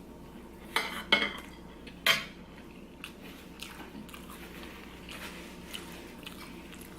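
Cutlery clinking against a plate during a meal: three sharp clinks in the first two seconds or so, then softer eating noises.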